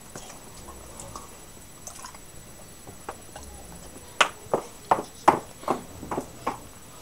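Quick footsteps: about eight short, sharp steps at roughly two and a half a second, starting about four seconds in.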